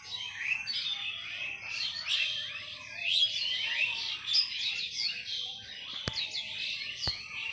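Many small birds chirping at once, a dense, overlapping chatter of short high calls, with two sharp clicks about a second apart near the end.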